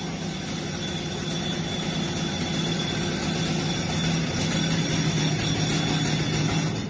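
Stihl MS 250 two-stroke chainsaw running steadily, getting somewhat louder about four seconds in and stopping abruptly at the very end.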